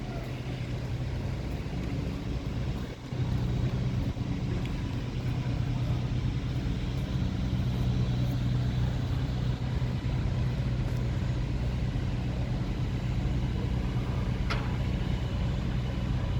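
A large engine running steadily with a low hum, getting louder about three seconds in. There is a brief sharp click near the end.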